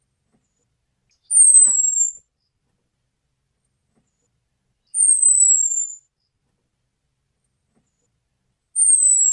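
Orange-headed thrush giving its 'cuitan' call, the thin, high, slightly falling whistle that bird-keepers play to lure males. Three calls, each just under a second long, about three and a half seconds apart.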